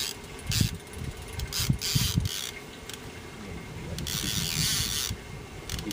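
Fishing reel being cranked while a fish is fought on the line: uneven mechanical whirring and ratchety clicking in short spells, with a longer rush of noise about four seconds in.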